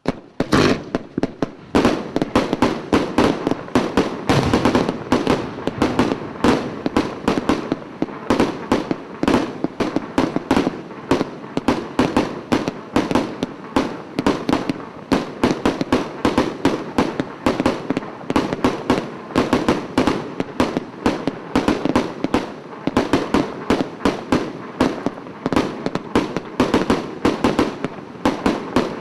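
Dragon DHC004 firework cake firing shot after shot without a break, several sharp bangs a second. Each coloured-tail shot rises and bursts into a coloured peony.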